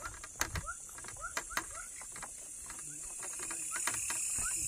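Nighttime insects keep up a steady high trill that grows louder near the end. Scattered sharp clicks and short rising chirps sound through it.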